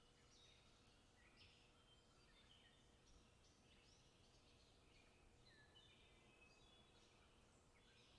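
Faint chirping of small birds: many short, high calls and brief trills overlapping one another, over a low steady hiss.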